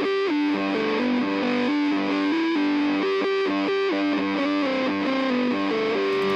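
Instrumental break in a rock song, with no singing: a guitar plays a melody line that steps from note to note over the backing.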